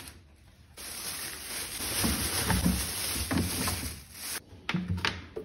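Thin clear plastic bag crinkling and rustling as it is handled, starting about a second in and stopping shortly before the end. A few soft knocks follow near the end.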